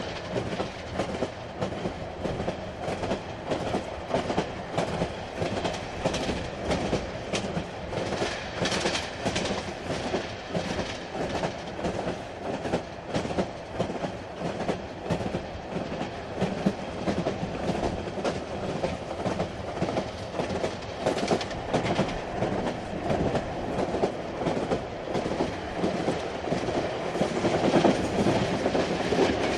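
Inside a moving train car: a steady rumble of running on the rails, with the clickety-clack of the wheels over the rail joints going on all through.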